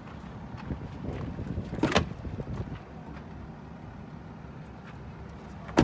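Steady low vehicle rumble with wind buffeting the microphone, broken by a sharp knock about two seconds in, a few smaller knocks around it, and another sharp knock at the very end.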